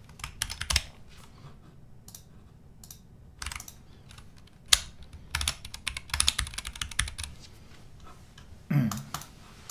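Typing on a computer keyboard in short runs of quick keystroke clicks separated by pauses.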